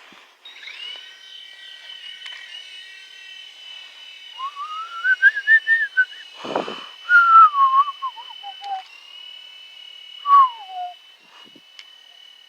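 Small electric RC helicopter's motors and rotors spinning up into a steady high whine, with a louder, lower whine sliding up and down in pitch three times as the throttle changes, and a brief thump about six and a half seconds in.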